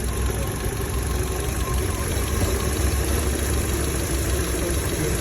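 Chevrolet Lacetti SE engine idling steadily, warm and with its knock gone; a light, even ticking of the fuel injectors runs through it, the normal sound of a healthy engine rather than a knock.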